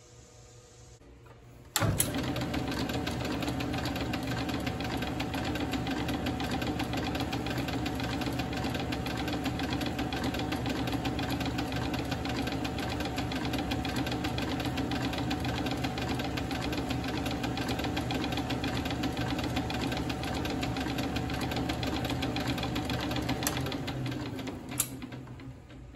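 South Bend metal lathe switched on about two seconds in, running steadily with a fast, even gear rattle, its gears set to the pitch for cutting an 8-threads-per-inch thread. Near the end it winds down, and a short click follows.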